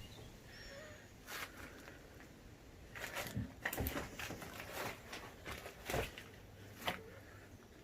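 Irregular crunches and knocks of footsteps and rummaging on a debris-strewn floor, with faint bird chirps in the first second.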